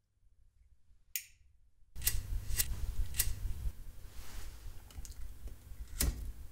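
A flip-top lighter clicked open with a ringing metallic click, then its flint wheel struck several times: three sharp clicks about half a second apart, a few fainter ones, and a heavier strike near the end.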